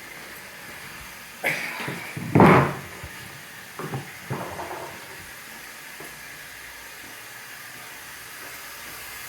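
Toilet running, a steady hiss of water flowing into the bowl or tank. A few knocks break in, the loudest a heavy clunk about two and a half seconds in.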